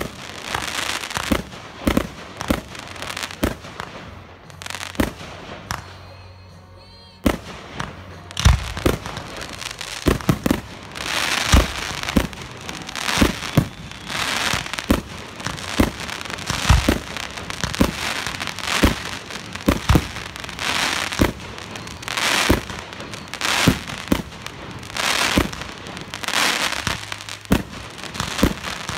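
Aerial fireworks display: shells bursting in a rapid run of sharp bangs, with the fizzing crackle of crackling stars between them. The bangs ease off briefly about five seconds in, then pick up again.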